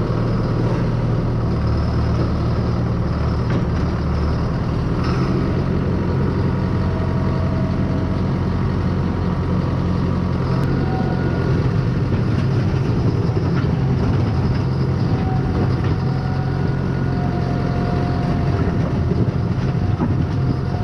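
Diesel engine of farm machinery pushing snow, running steadily under load, with a faint whine that comes and goes.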